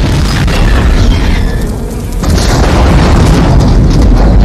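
Tanker truck exploding: a loud, continuous blast and fireball roar, heaviest in the bass. It eases slightly about two seconds in, then surges again to its loudest near the end.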